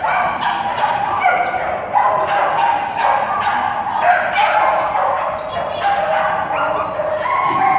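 A dog barking and yipping rapidly over and over, barely pausing between barks.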